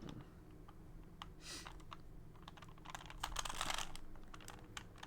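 An original Rubik's Cube being handled and turned: quick plastic clicks, with a longer rattling scrape from about 3 to 4 seconds in.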